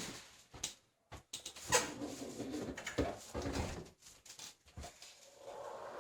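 Saw parts and packing being handled during unboxing: a run of irregular knocks, clicks and rustles, loudest about two and three seconds in.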